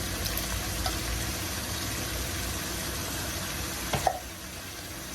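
Ground beef and onion sizzling in a pot, with a few faint clicks and a sharp knock about four seconds in, after which the sizzle is quieter.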